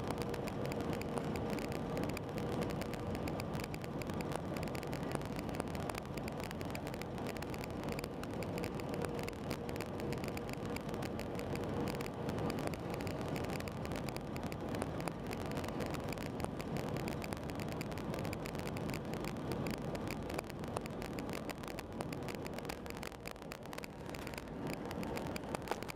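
Airbus A320 cabin noise on final approach: a steady drone of engines and rushing air with a faint steady whine, easing slightly near the end as the aircraft comes down over the runway.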